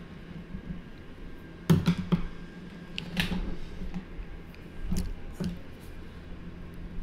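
Coloured pencils clicking and knocking against the paper and tabletop as they are picked up and set down, with a short scratchy pencil stroke about three seconds in. The clicks come in small clusters: a little under two seconds in, around three seconds and around five seconds.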